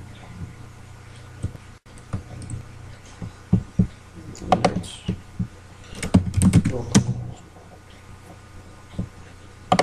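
Computer keyboard typing and clicking: a scattered run of key clacks, thickest in the middle, over a low steady hum.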